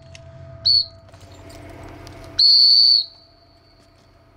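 A handler's dog whistle blown twice, high and shrill: a short blast under a second in, then a longer blast of about half a second past the middle, the call and direction signal to a retriever working the downed geese.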